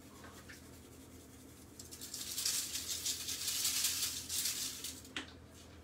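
A hand-held pepper grinder being twisted over the fish: a dry, rattling grind that starts about two seconds in and lasts about three seconds.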